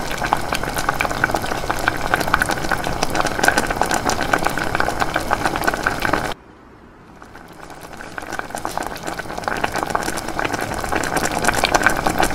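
Water boiling vigorously in the bottom compartment of a self-heating instant hot pot, heated by the flameless heat pack, a dense crackling bubbling. About six seconds in it drops off abruptly, then builds back up over the next few seconds.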